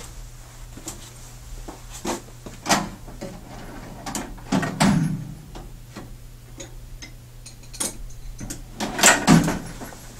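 Irregular clicks and knocks of small hard objects being handled as a pair of flat pliers is fetched and picked up. The loudest cluster comes near the end.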